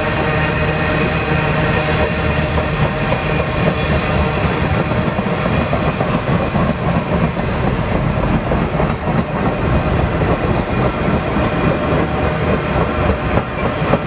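BNSF freight train's cars rolling past close by: a steady, loud rumble and rattle of steel wheels on the rails.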